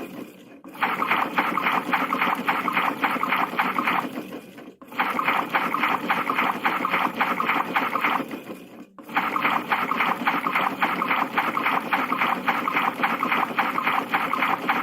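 PlayGo toy washing machine running its wash cycle: a water-sloshing sound with a fast pulsing beat. It breaks off briefly about every four seconds.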